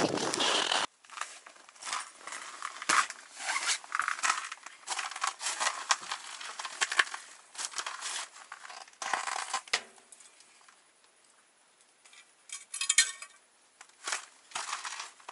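Rustling and crinkling of winter clothing and fishing gear being handled in a small ice-fishing tent, with scattered small clicks and knocks. A second of louder noise at the start cuts off suddenly, and a quick run of ticks comes about 13 seconds in.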